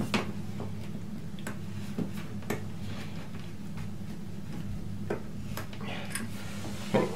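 Irregular small clicks and ticks from a chrome toilet roll holder being twisted by hand to tighten it onto its wall fixing, over a steady low hum.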